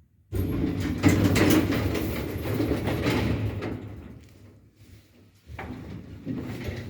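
MLZ passenger elevator working: a sudden rattling, rumbling clatter that fades away over about four seconds, then a second, shorter burst near the end.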